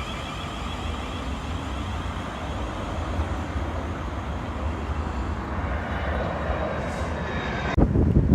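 Train running past with a steady rumble that builds slightly. A pitched horn-like tone fades out in the first second. Wind buffets the microphone near the end.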